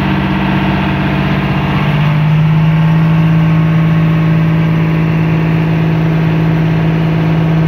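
Motorboat engine running steadily under way. About two seconds in, its note shifts slightly lower and gets a little louder.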